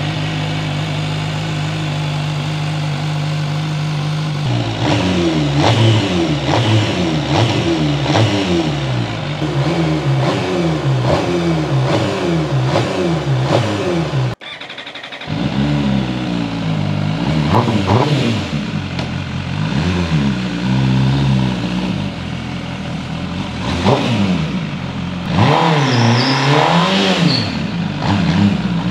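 MV Agusta Brutale 1000 RR's 998 cc inline-four, cold on its first start, idling steadily, then blipped again and again, about once a second, the pitch rising and falling with each rev. After a short break near the middle, more revs of uneven length follow.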